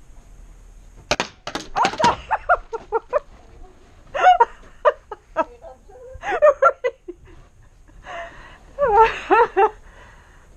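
A quick string of sharp cracks from paintball fire about a second in. Several bursts of short, high-pitched yelping cries follow.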